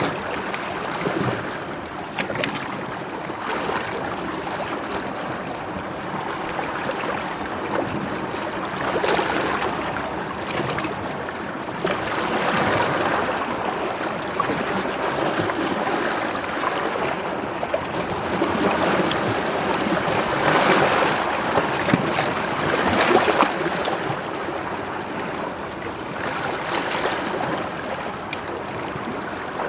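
Sea waves washing in, a continuous rushing of water that swells and eases every few seconds.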